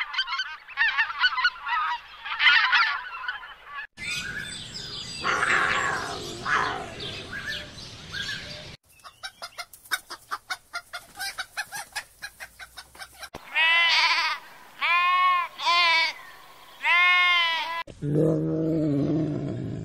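A run of animal calls cut together: mallard ducks quacking, then chickens clucking in a rapid patter, then four loud drawn-out bird calls. Near the end comes a lioness's deep call as she yawns.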